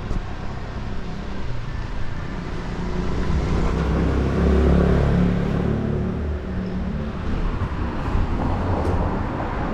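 Street traffic: a motor vehicle passing, its low engine and tyre rumble swelling to a peak about halfway through and then fading.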